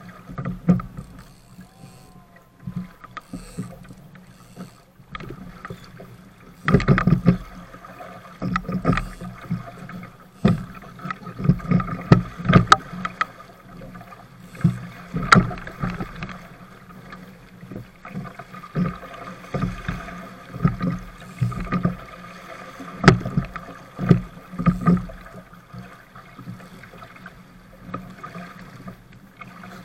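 Water slapping and splashing against the hull of a small sailing dinghy under way through chop, in irregular sudden bursts over a steady rush of water.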